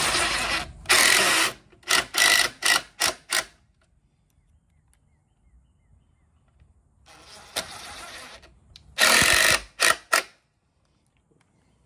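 DeWalt 20V cordless driver driving screws to fasten the box. There are two runs at the start, then about five short trigger pulses as a screw is seated, a quiet gap, a softer run, and another loud run near the end.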